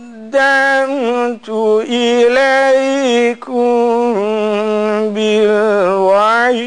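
A man reciting the Quran in melodic chant, holding long notes with ornamented turns and taking short breaths between phrases. His voice drops lower about four seconds in and climbs again near the end.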